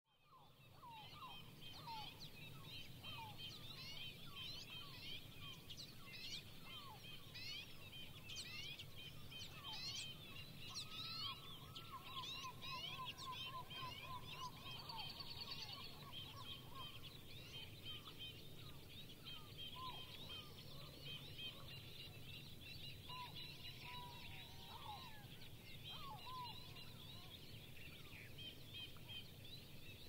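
Chorus of many migrating birds: a dense, continuous high twittering of small birds, with lower rising calls from other birds breaking in every few seconds and a short trill of repeated notes partway through.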